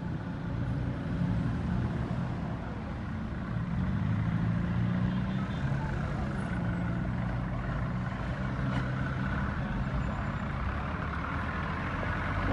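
Motor vehicle engines idling and running close by in street traffic, a steady low rumble.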